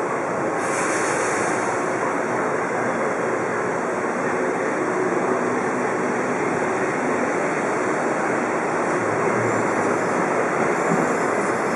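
Cobrasma Frota C metro train pulling out of the station and accelerating away, a steady rumble of traction motors and wheels on rail. A short burst of air hiss about a second in.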